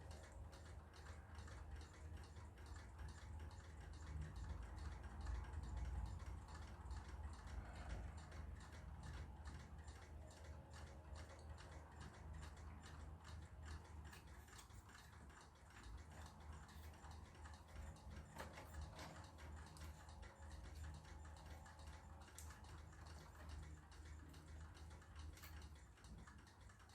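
Faint, regular ticking over a low, steady hum.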